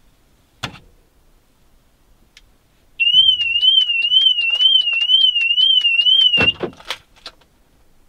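Mercedes-Benz E-Class W212 anti-theft alarm siren going off: a loud warbling tone rising and falling about three times a second, starting about three seconds in, after a single click. It cuts off with a loud clunk followed by two clicks as the alarm is switched off with the key.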